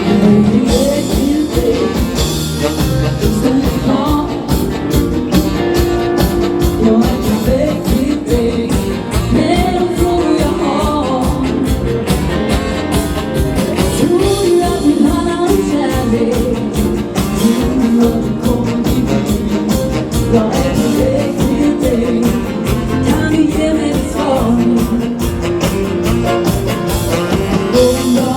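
Live dance-band music: a band playing a steady dance beat with a singer.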